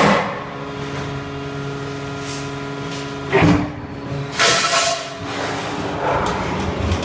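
HS M1600 metal baler working: a steady machine hum, broken about three and a half seconds in by a clank and then, a second later, a short loud hiss before the hum carries on.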